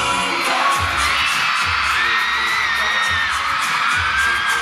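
A concert crowd of fans screaming and cheering, with long high-pitched screams, over the thudding bass beat of the K-pop song's closing music.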